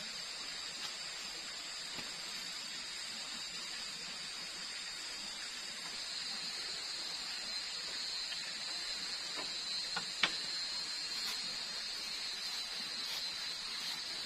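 Steady high-pitched chorus of night insects in tropical forest, with a few sharp clicks about ten seconds in.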